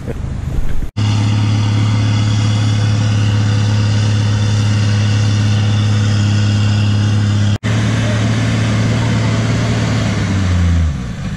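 Four-wheel-drive's engine running at steady revs while towing a camper trailer through soft sand. The sound cuts out sharply twice, and the engine note drops in pitch near the end as the vehicle eases off.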